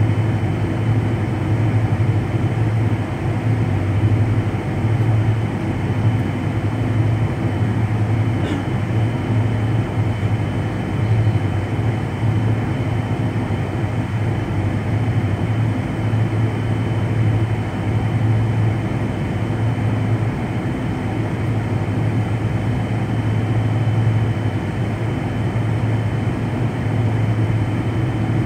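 Steady drone inside an airliner cabin on the ground, from the jet engines at low power, with a strong low hum and a faint steady high whine.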